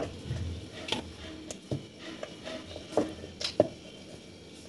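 Wooden rolling pin rolling small balls of dough flat on a wooden board, with several irregular light knocks and clacks of the pin against the board.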